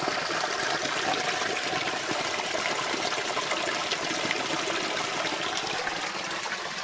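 Spring water flowing steadily from the spring's outlet.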